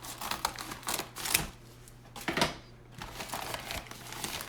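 Packaging being handled and opened by hand: irregular crinkles, rustles and clicks, with a few louder sharp snaps about a second and a half and two and a half seconds in.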